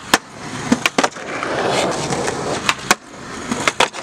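Skateboard wheels rolling on pavement, broken by several sharp clacks of the board popping and landing during a trick, with clacks about a second in and near the end.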